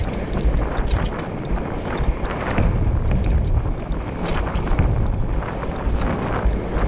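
Wind buffeting the microphone of a mountain bike rider's camera while riding fast over a rough, dry dirt trail, with the bike rattling and clicking over the bumps.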